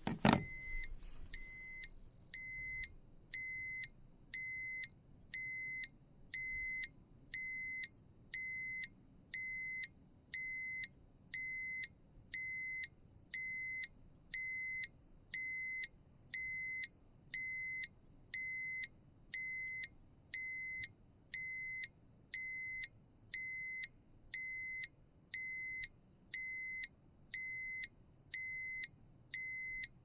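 Radiation dosimeter alarm: a steady high-pitched tone with a lower beep repeating about once a second over it. A sharp click, the loudest sound, comes just as it starts.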